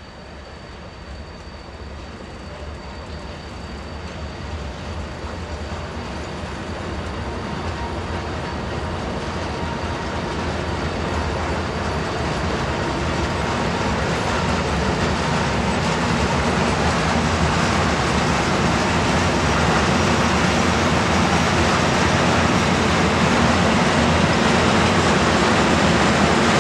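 Freight train of loaded open wagons rolling through, a steady rumble and hiss of wheels on rail that grows louder throughout. A faint high wheel squeal fades out in the first few seconds.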